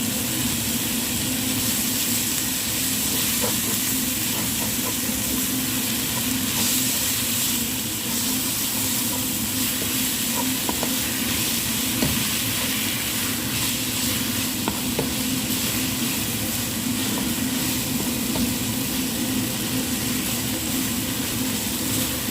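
Onion, tomato and spice masala with coriander leaves sizzling in a pan while being stirred, with a few light clicks of the stirring utensil against the pan. A steady low hum runs underneath.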